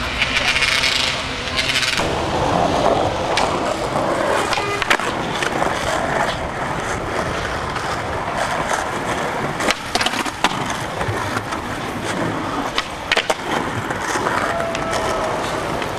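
Skateboard wheels rolling on smooth concrete, a steady gritty rumble. Sharp wooden clacks of the board popping and landing come several times: about 5 seconds in, a cluster around 10 seconds, and a pair near 13 seconds.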